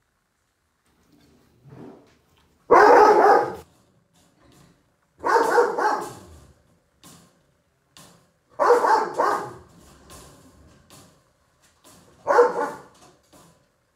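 A puppy barking: four loud, drawn-out barks a few seconds apart.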